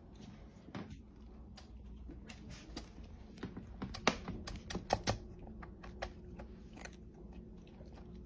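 A cat eating dry kibble from a bowl: irregular small crunches and clicks, with a few louder ones about four to five seconds in.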